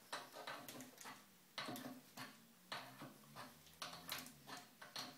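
Faint, irregular metal clicks and taps of an adjustable spanner working the hose nut on a diverter valve as it is tightened, a dozen or so.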